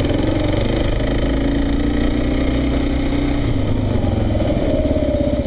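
Kawasaki KLR motorcycle's single-cylinder engine running steadily as the bike climbs a hill, easing off about three and a half seconds in.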